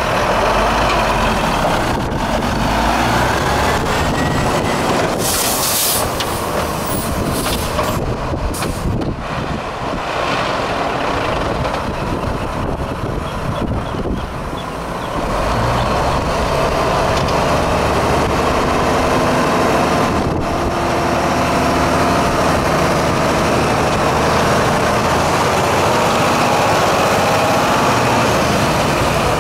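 A 1996 Mack mixer truck's diesel engine runs as the truck is driven around, dropping in level about a third of the way in as it pulls away and rising again about halfway through as it comes back. A short burst of air-brake hiss comes about five seconds in.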